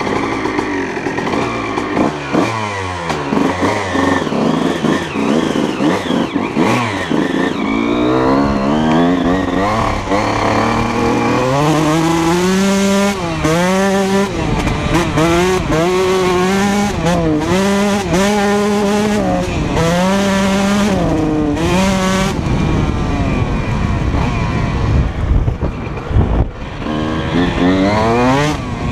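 2004 Honda CR125R 125 cc single-cylinder two-stroke engine with a full Pro Circuit exhaust, being ridden. The revs climb and fall again and again as the rider accelerates and shifts, most clearly through the middle.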